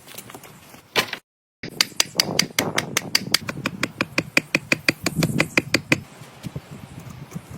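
A rapid, even run of sharp knocks or taps, about seven a second, lasting some four seconds after a brief total dropout.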